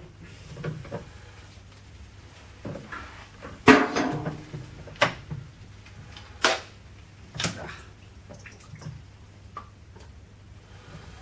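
A handful of sharp knocks and clunks as the filter housing and the tightening tool are handled, the loudest about four seconds in, over a low steady hum.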